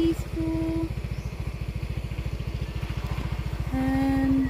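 Motorbike engine running at a steady pace while riding, its firing pulses even throughout. A few short held pitched tones sound over it: two in the first second and one near the end.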